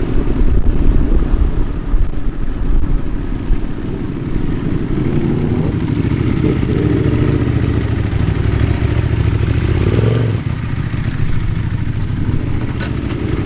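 Vehicle engines running close by, with a rev that rises and falls about ten seconds in.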